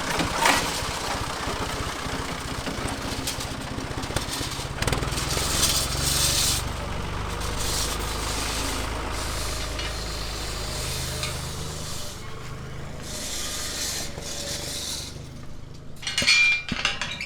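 Ford tractor engine running as it pulls away, louder for a while and then fading into the distance. A few short, sharp sounds come near the end.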